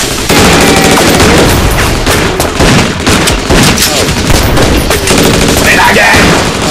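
Rapid gunfire, shots following close on one another, with a man yelling near the end.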